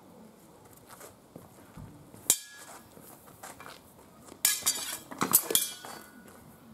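Steel training swords and bucklers clashing during sword-and-buckler sparring: one sharp metallic clash about two seconds in, then a rapid flurry of ringing clashes a little past the middle.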